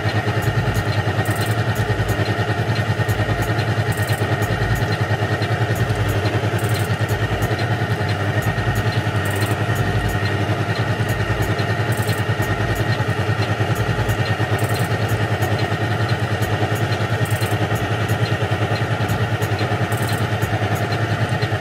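Electric stand mixer running on low speed, its flat beater creaming butter and sugar in the bowl: a steady motor hum with a regular beat about once a second.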